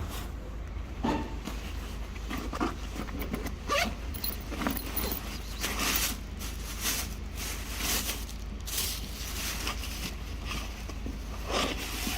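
Irregular short rustling and scraping sounds, one or two a second, over a steady low hum.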